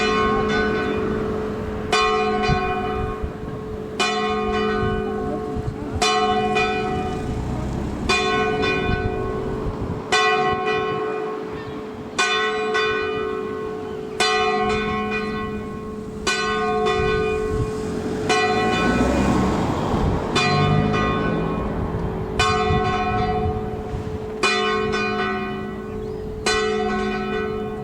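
St John's Church bell ringing for a service, a single bell struck about every two seconds. Each stroke rings on with a rich hum that fades into the next. A low rumble passes under the strokes about two-thirds of the way through.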